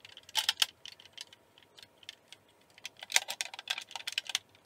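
Light plastic and metal clicks and taps as the removable engine cover is worked back onto a 1:18 model of the Cadillac Northstar LMP race car, in two clusters: about half a second in and around three seconds in.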